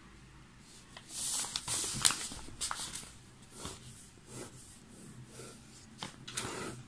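Pen writing by hand on paper: short scratchy strokes in spurts with brief pauses, busiest in the first few seconds.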